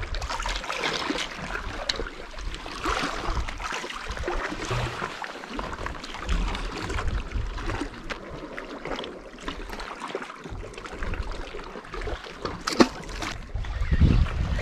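Wind buffeting the microphone in uneven low gusts over sea water lapping against shore rocks, with one sharp click late on.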